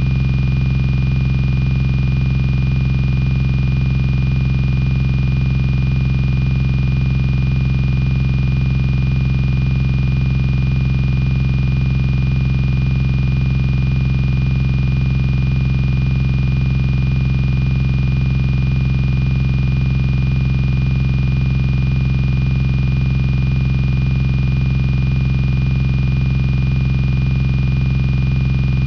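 A loud, steady buzzing hum with a thin high whine above it, unchanging throughout.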